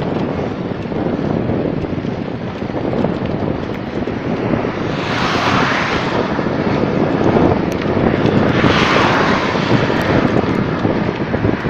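Wind rushing over a phone's microphone while riding a bicycle at speed: a steady, loud rumble with two stronger rushing swells, about five and eight and a half seconds in.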